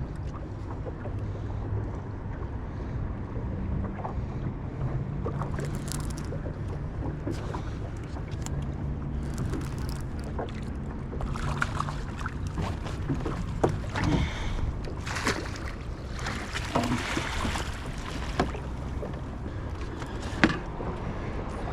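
A boat motor running with a steady low hum, over wind and water noise, with scattered knocks and short rushes of noise as a fish is handled aboard. The hum fades about two-thirds of the way through.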